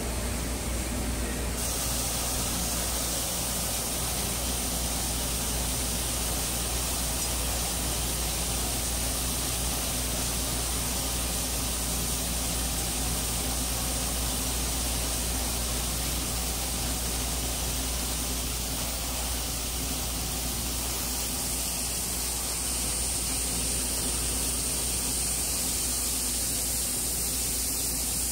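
Jonsen SGP1000 wide-belt and planetary abrasive barrel deburring machine running steadily: a constant hissing machine noise over a low hum, the hiss growing stronger about a second and a half in.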